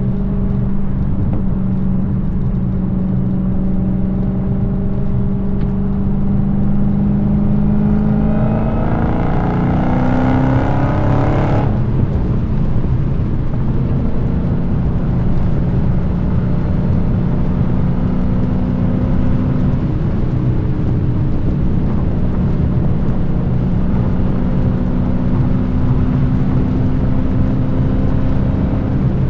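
Dodge Challenger SRT Hellcat's supercharged 6.2-litre Hemi V8 exhaust, cruising steadily, then rising in pitch under acceleration for about three seconds. The note drops off sharply about twelve seconds in, then settles back to a steady cruise.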